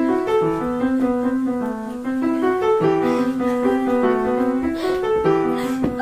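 Piano played by hand: a lively figure of notes and chords that repeats over and over.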